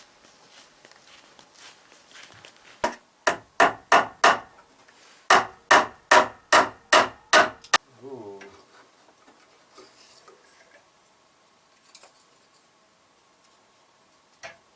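Hammer blows on wood in two quick runs, about five strikes and then about seven, roughly three a second, followed by a short falling creak.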